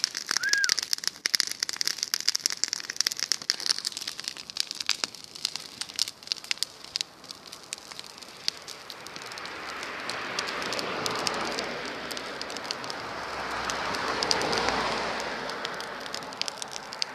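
Bonfire of dry grass and hay crackling and popping, densely at first. Later a broad rushing noise swells up and fades away.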